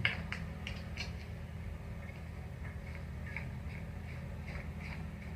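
Light plastic clicks and ticks, a few a second, as black plastic pedestal-fan parts are fitted and threaded onto the motor shaft by hand, over a low steady hum.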